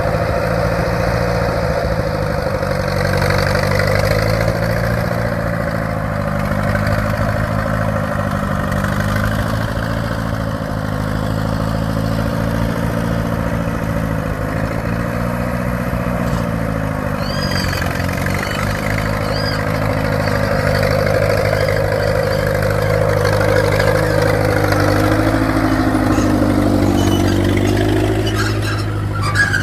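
Ford Major tractor's four-cylinder diesel engine running steadily under load while pulling a leveling disc harrow, its pitch dipping and recovering now and then.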